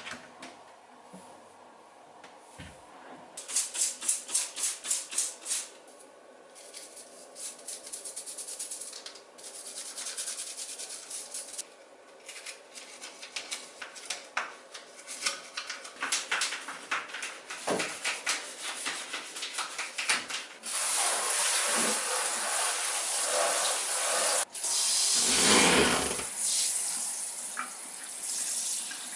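A run of quick, rhythmic strokes, about five a second, on and off for a while, then a water tap running into a sink, with a heavier gush of water a little past the middle of that stretch.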